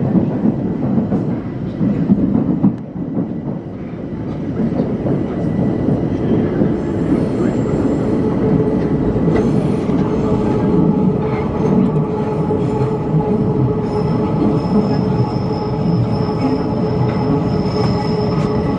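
Metro train heard from inside the carriage as it runs through a tunnel, a steady rumble of wheels on rail. A squealing whine joins it from about seven seconds in, and a high squeal is added over the last few seconds, as the train slows into a station.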